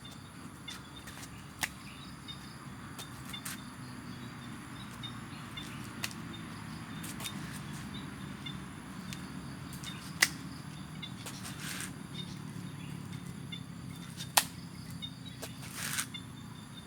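Plastic Islander boomerang whirring through the air in flight, a low whirr that swells and fades through the middle. A few sharp clicks stand out, the loudest about ten and fourteen seconds in.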